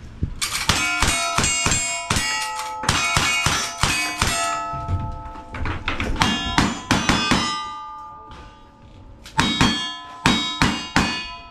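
Rapid string of gunshots, each followed by the ringing clang of a hit steel plate target. The shooting pauses for over a second about two-thirds of the way through, then resumes.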